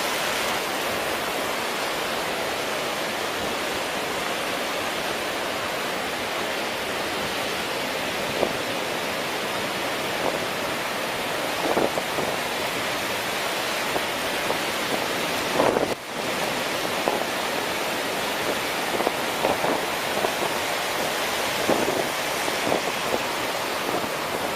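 Steady rushing noise of strong wind and breaking surf, the wind buffeting the microphone, with a few small louder moments.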